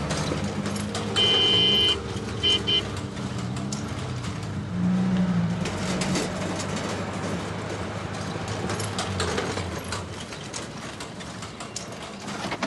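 Street traffic noise with a vehicle horn: one long honk about a second in, then two short beeps.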